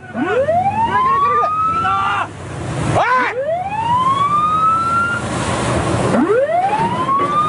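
A siren whooping: each call rises steeply in pitch over about two seconds, then breaks off and starts again, three times, over a low rushing noise of engine and water.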